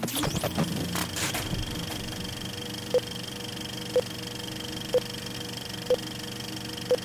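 Old film projector sound effect: a steady whirring run with crackles and clicks near the start, then a short beep once a second, five times, as a film-leader countdown runs.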